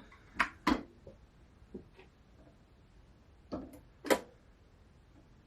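A handful of sharp mechanical clicks and light knocks from a Marantz 6110 turntable being worked by hand. The two loudest come about three-quarters of a second and four seconds in.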